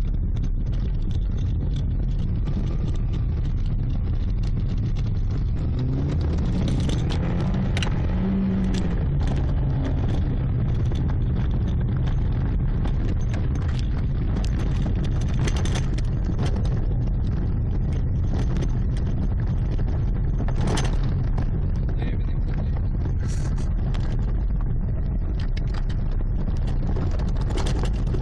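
Car driving at speed: steady engine and road rumble, with the engine pitch climbing as it accelerates about a quarter of the way in, and a few short knocks from bumps in the road.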